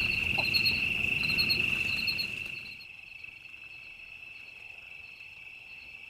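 Insects trilling: one steady high-pitched trill throughout, with another insect chirping in quick pulsed groups during the first half. A low rustling noise underneath stops about two and a half seconds in, along with the chirping.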